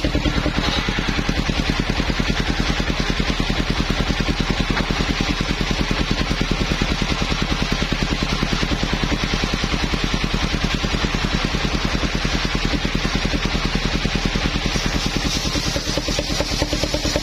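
Engine of a portable circular sawmill running steadily, with a fast, even beat.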